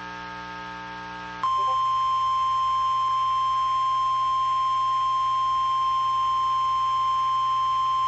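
NOAA Weather Radio 1050 Hz warning alarm tone: one steady, loud, high beep that switches on about a second and a half in and holds without a break. It signals that a warning message follows. Before it, only a faint steady hum.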